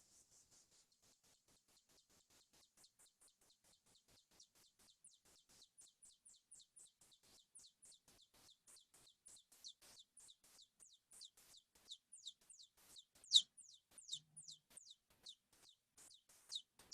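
Singing mouse song played back slowed threefold: a long trill of rapid, high, downward-sweeping notes that get slower and louder as it goes, with the loudest note about three-quarters of the way through.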